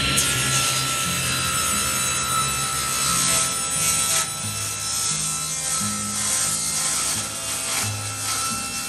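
Table saw running with a steady high tone while its blade cuts through a thick maple board on a crosscut sled, a rasping cut sound over the motor. Background music plays underneath.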